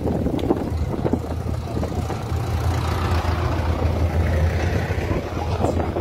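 Steady low hum of a tourist road train's engine, heard from its open-sided passenger carriage, over a haze of travel and wind noise.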